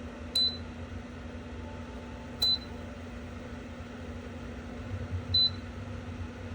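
Electric space heater beeping three times, short high beeps about two to three seconds apart as its controls are pressed, over the steady hum of its fan running.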